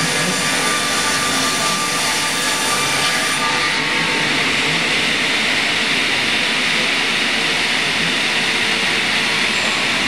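Twin circular saw blades of a DKP6 double-blade sawmill running and cutting through a squared log on the carriage. The cutting noise is steady and turns harsher and hissier about four seconds in, as the blades bite fully into the wood.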